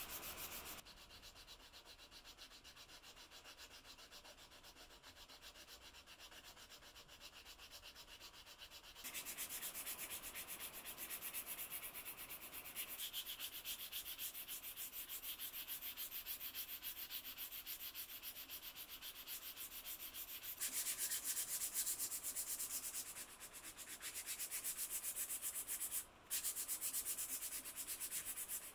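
Hand sanding a wooden rice scoop with a small sanding block: quick back-and-forth rubbing strokes along the handle and then over the bowl. The sanding comes in several runs that stop and restart, with a short break near the end.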